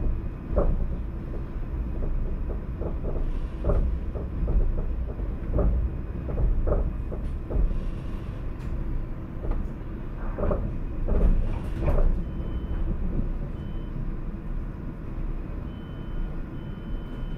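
Paris T3a tram running on its track: a steady low rumble with irregular knocks and clunks from the car. A few short high beeps sound in the second half.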